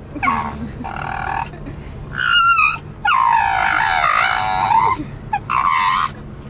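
Staffordshire bull terrier singing: a string of about five high, wavering howls, the longest about two seconds in the middle of the run. The car's steady low hum runs underneath.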